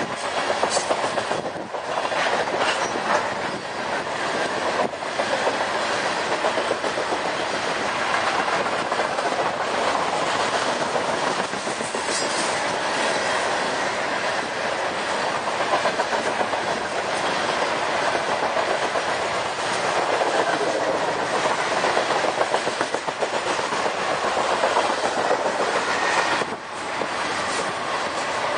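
Train of steel coal hopper cars rolling past, a steady rumble of wheels on rail with continual clickety-clack as the wheels cross rail joints.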